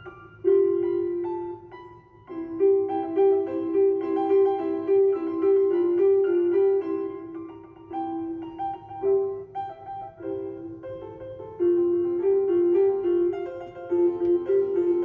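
Background instrumental music: a melody of short notes on a piano-like keyboard.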